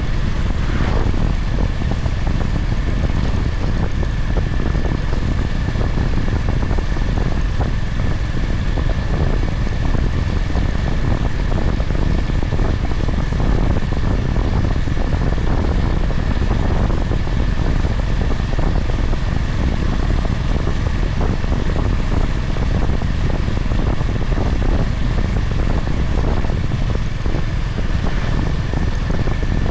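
Honda GB350's single-cylinder engine running at a steady pace while the motorcycle is ridden, under a constant low rush of wind and road noise on the microphone.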